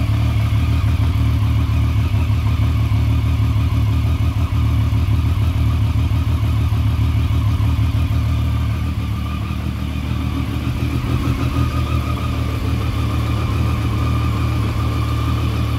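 2013 Triumph Street Triple R's 675 cc three-cylinder engine idling steadily, still warming up after a cold start.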